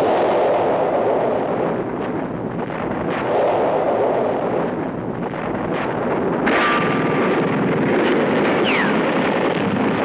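A continuous battle din of artillery fire and explosions, swelling and easing in waves, with a short high whistle falling in pitch near the end.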